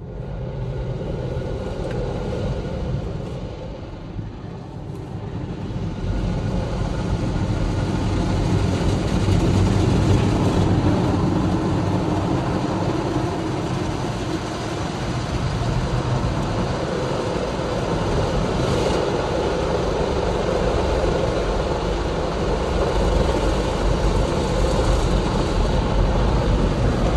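Automatic rollover car wash gantry working over the car, heard from inside the cabin: a steady rush of spraying water and machinery with a low rumble. It builds quickly at the start and grows louder again about six seconds in.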